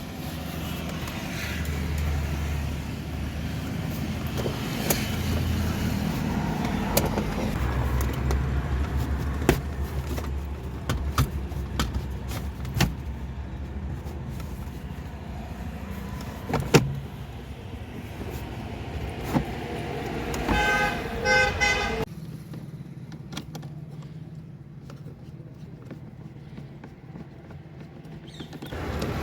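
Workshop noise: a vehicle's low rumble, scattered metallic clicks and knocks, and a pulsing horn-like tone for about two seconds near the end.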